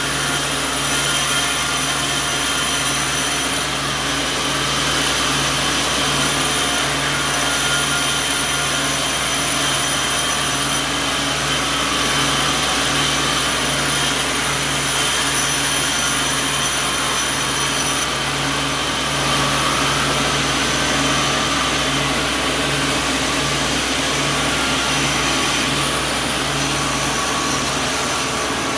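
Sawmill machinery running steadily: a continuous mechanical drone with a low hum and steady high tones.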